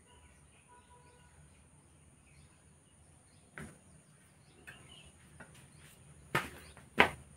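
Loose steel sprockets from a bicycle's broken freewheel clinking as they are slid off the rear hub and handled: one clink about halfway through, then two sharper ones about half a second apart near the end. Faint birdsong and a steady high insect drone sound behind.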